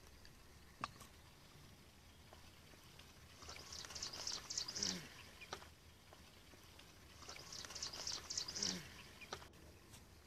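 An animal calling twice, each call about two seconds long, with a rapid high trill that ends in a short falling note; a single click about a second in.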